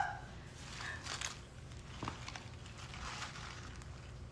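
Quiet room with a steady low hum and a few faint, soft handling noises, including a small click about two seconds in.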